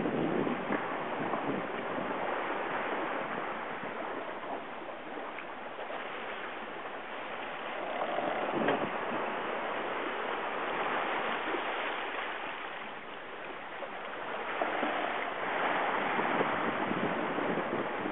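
Wind and sea aboard a sailing yacht under way: a steady rushing hiss of water and waves, with wind buffeting the microphone, swelling louder and easing off every few seconds.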